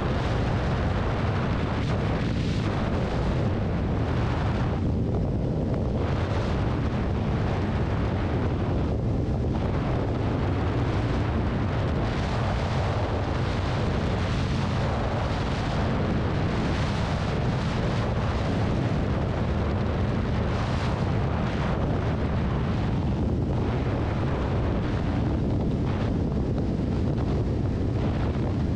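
Steady wind rush buffeting the microphone at riding speed, over the running of a 2018 Kawasaki Ninja 400's parallel-twin engine through its Two Brothers aftermarket exhaust.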